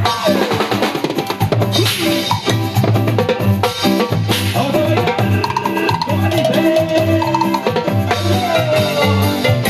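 A band playing salsa-style music live, with a drum kit and percussion keeping a steady beat under pitched instrumental lines.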